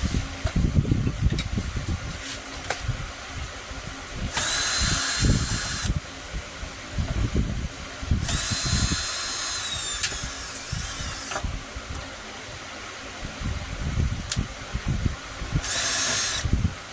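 A small electric power tool runs in three bursts: one of about two seconds, one of about three seconds, then a short one near the end, each a steady high whine. Irregular low thumps come between the bursts.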